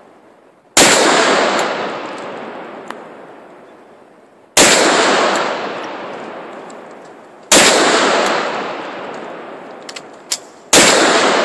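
Ruger .44 Magnum revolver fired four times, a few seconds apart, with hardcast handloads. Each shot is a loud crack followed by a long echo that dies away over several seconds.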